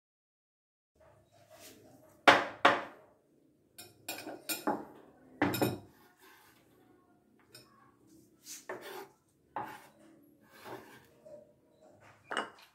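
Steel chef's knife knocking and scraping on a wooden cutting board as diced carrot is scooped up and moved into a glass bowl: a string of sharp knocks and clatters, the loudest two close together about two seconds in, then lighter ones.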